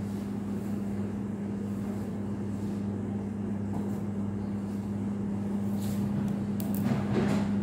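A machine's steady low hum, even in pitch and level, with a few light clicks and rustles near the end.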